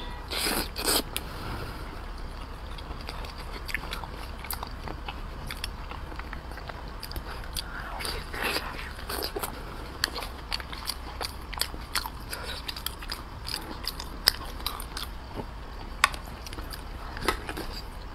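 Close-miked eating: biting and chewing a soft dough dumpling soaked in braised-pork sauce, with wet smacking and many small mouth clicks. Louder bites come about half a second in and again around eight seconds.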